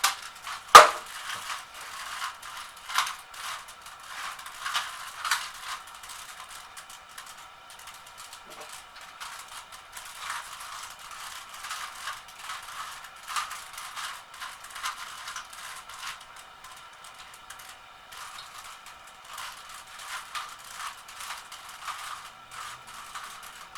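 Plastic Rubik's Cube layers being twisted rapidly in speed-solving: an irregular clatter of clicks and rattles, with one sharp, loud click about a second in.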